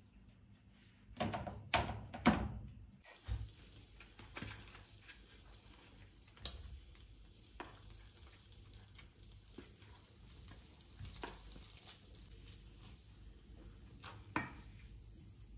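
Tofu frying in oil in a nonstick pan, a quiet steady sizzle with the occasional knock of a wooden spatula against the pan, loudest about fourteen seconds in. A few sharp knocks come in the first couple of seconds.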